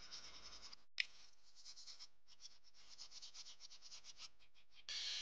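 Hand sanding a 9ct gold watch case part with a small piece of abrasive: quick, scratchy back-and-forth strokes, interrupted once by a short click about a second in. A louder, steady hiss starts near the end.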